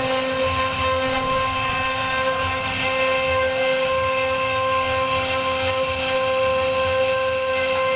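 CNC router spindle running at speed with a steady whine as its carving bit cuts relief patterns into a wooden door panel.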